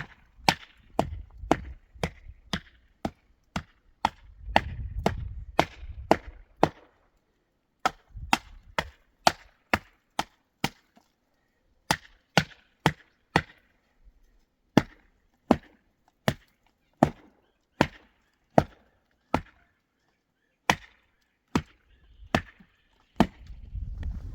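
Repeated sharp chopping strikes, about two a second, coming in runs with short pauses between them, with a low rumble under some of the runs.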